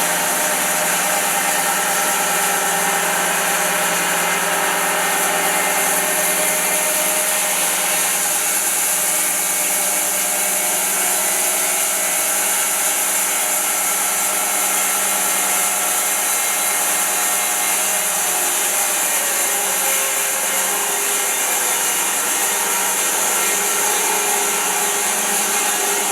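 Wide-cut bandsaw mill running steadily, its blade sawing through a large silver maple round, with a constant high hiss over the machine's hum.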